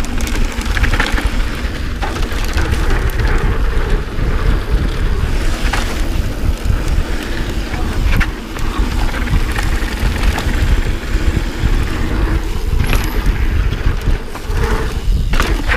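Mountain bike descending a dirt trail: wind buffeting the microphone over a steady rumble of knobby tyres on packed dirt, with scattered knocks and rattles from the bike over bumps.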